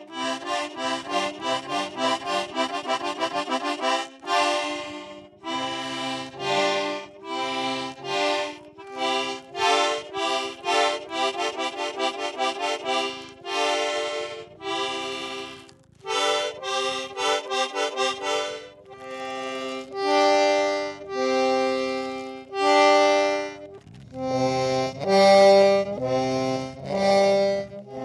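Accordion being played as single notes and chords rather than a tune: a quick run of short staccato stabs through the first half, then longer held chords of about a second each, with deeper bass notes joining near the end.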